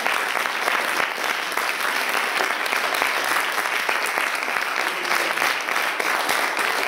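Audience applauding, many hands clapping in a steady patter.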